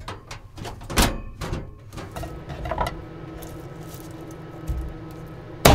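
Hands knocking and tapping a head of garlic on a wooden cutting board, a few sharp knocks in the first seconds, over the steady hum of the camper's heater. A very loud knock comes at the very end as the garlic head is broken apart.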